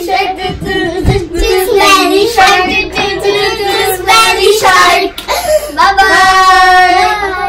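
Young girls singing a children's song together, holding one long note near the end.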